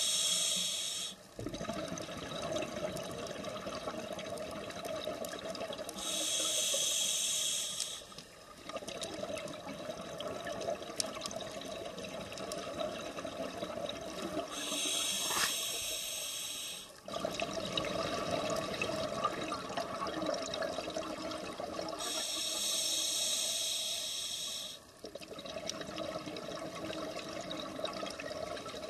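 Scuba diver breathing through a regulator underwater: a loud bubbling hiss of exhaled air about every eight seconds, each lasting two to three seconds, over a steady low rush of water.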